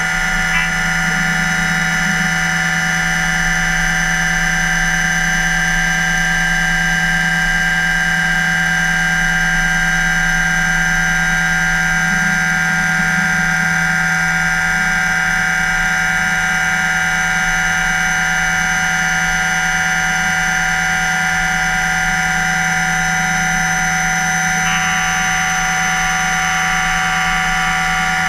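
Okuma MULTUS U4000 multitasking machine milling a clevis part with a small end mill: a loud, steady whine of several held tones from the spindle and the cut, with the higher tones shifting near the end.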